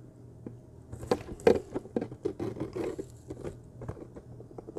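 Hard plastic being handled: irregular light clicks, taps and scrapes from a clear plastic drink bottle and a plastic enclosure, with two sharper clicks about a second and a second and a half in.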